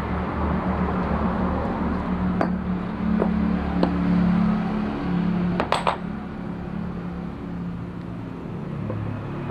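Sharp metallic clinks of metal parts and tools being handled, a few single ones and then a quick cluster of three or four, over a steady low motor hum.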